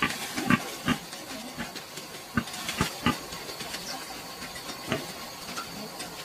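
A sow and her newborn piglets giving about half a dozen short grunts and squeaks, spread across a few seconds, over a steady hiss.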